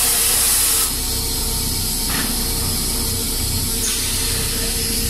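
Pulp molding machine for paper shoe trees running: a steady mechanical drone with a constant hum, and a loud hiss during the first second that then cuts off.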